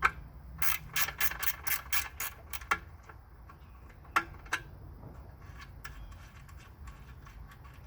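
Hand ratchet wrench clicking in a quick run of about a dozen clicks, then a couple of single clicks, as the fuel tank's mounting bolts are worked loose.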